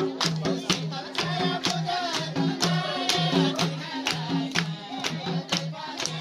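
Live Nepali dohori folk music: a madal hand drum keeps a steady beat of deep pitched strokes and sharp slaps, about two to three a second, and a voice sings a wavering line from about a second in until past the middle.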